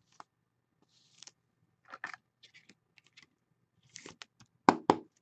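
A trading card in a soft plastic sleeve handled against a rigid clear plastic holder: soft crinkles and scattered small clicks, then two sharp clicks close together near the end.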